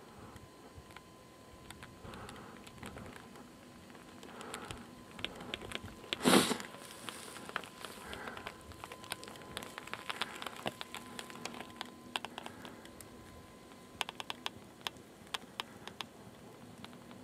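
Irregular light clicking and crackling, with one louder short rustling burst about six seconds in, over a faint steady high tone.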